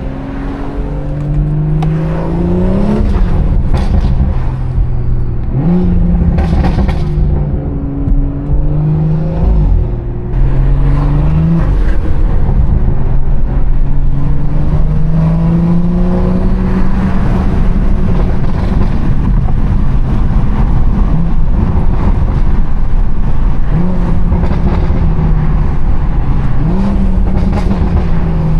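Tuned BMW 340i's turbocharged 3.0-litre inline-six, with a stage 2+ tune and valved exhaust, pulling through the revs. Its note climbs and drops back again several times as it accelerates and eases off.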